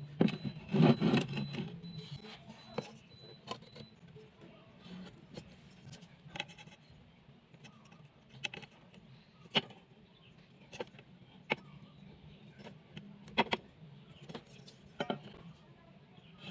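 Irregular sharp knocks and clicks of workpieces and hand tools being handled and set down, with a louder cluster about a second in.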